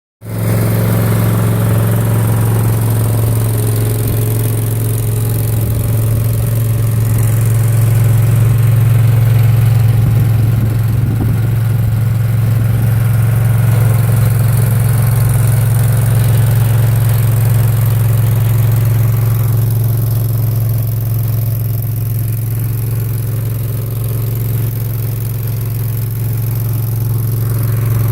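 Mini skid steer's engine running steadily with a constant low hum.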